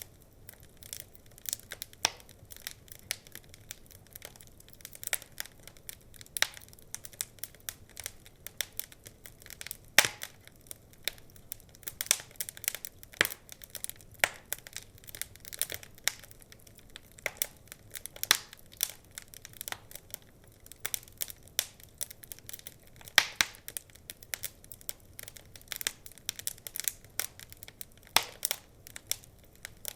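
Wood fire crackling: irregular sharp pops and snaps from burning logs, several a second, with a few louder pops.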